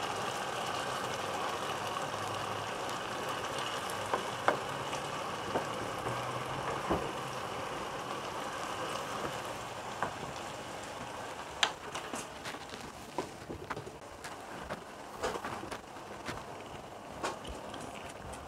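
Spiced buffalo meat simmering in hot water in a stir-fry pan: a steady bubbling sizzle that slowly fades, with scattered sharp clicks and pops, more of them in the second half.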